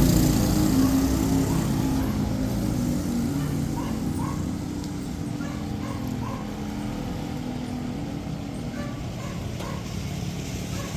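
A motor vehicle's engine close by, fading over the first few seconds as it moves away, leaving a low steady street rumble with a few faint short sounds in the middle and near the end.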